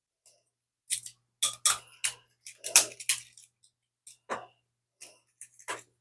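Plastic clicks and clacks of a Transformers Studio Series 86 Ratchet action figure being handled as its loose leg parts are pushed back into their slots. There are about eight sharp clicks at uneven intervals, loudest near the middle.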